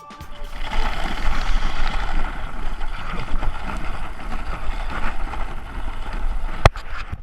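Wind buffeting the microphone outdoors: a loud, steady rushing noise with a low rumble. A single sharp click comes near the end.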